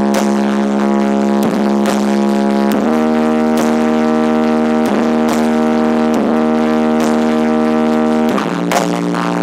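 Loud music on a sound system under test: a sustained, buzzy held note that changes pitch twice, over regular percussive hits.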